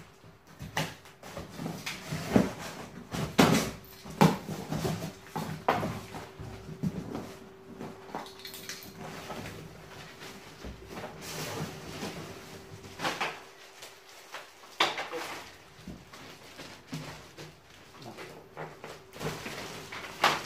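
Unpacking noise: a cardboard box being opened and a plastic-wrapped aluminium folding ladder pulled out of it, with cardboard and plastic film rustling and scraping and irregular knocks, the loudest cluster a couple of seconds in.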